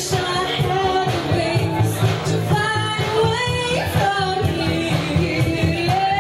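A woman singing a pop song karaoke-style over a recorded backing track, holding long notes that step up and down in pitch.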